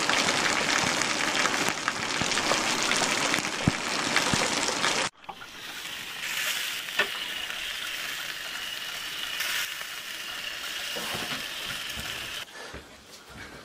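Steady hiss of falling rain, loud for about five seconds, then dropping to a quieter hiss.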